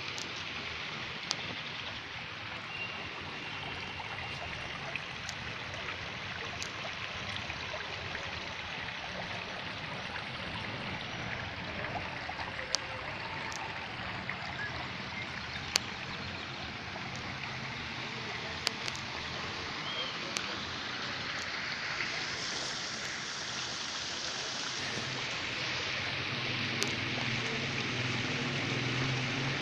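Steady rush of running water in a garden pool, growing a little louder in the last third, with scattered sharp clicks.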